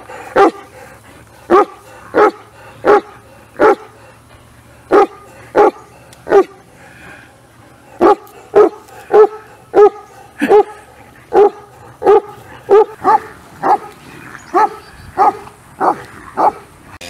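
Irish wolfhound barking: a long run of loud single barks, about one or two a second, with a couple of short pauses.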